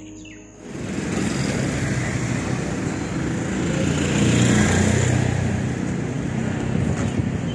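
A motor vehicle on the road passing close by, its engine and tyre noise swelling to the loudest point about halfway through and then easing.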